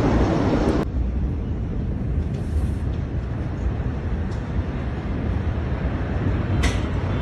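Steady low rumbling outdoor noise, with a single sharp click near the end.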